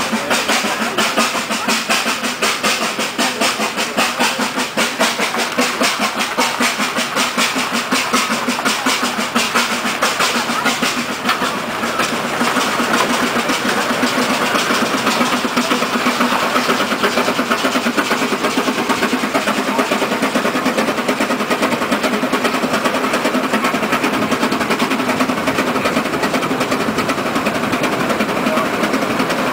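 Steam road locomotive running along a paved road, its engine keeping up a fast, rhythmic beat that runs more evenly after about twelve seconds.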